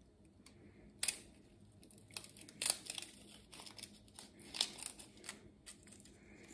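Dry, papery garlic skin crackling as a butter knife pries cloves out of a whole garlic bulb: scattered short crinkles and clicks, the sharpest about a second in and again near three and four and a half seconds.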